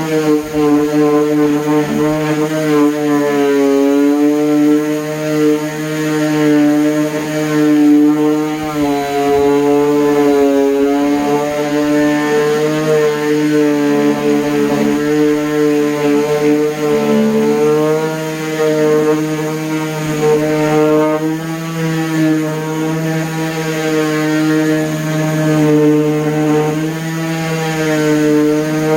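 DeWalt palm orbital sander running steadily with a 3M Xtract Cubitron II sanding disc working cedar wood. The motor hum wavers slightly up and down in pitch as the pressure on the workpiece changes.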